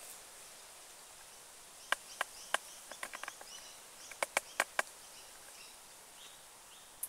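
A series of sharp, short snaps or clicks, about a dozen, in two clusters through the middle, over a faint outdoor background with a few faint high chirps.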